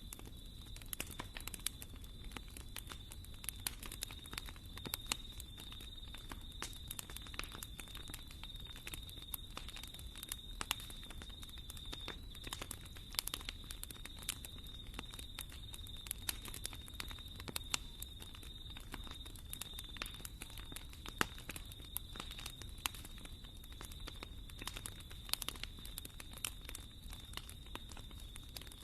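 Wood fire in a fireplace crackling, with irregular sharp pops and snaps over a steady low rumble. A faint steady high-pitched tone runs under it.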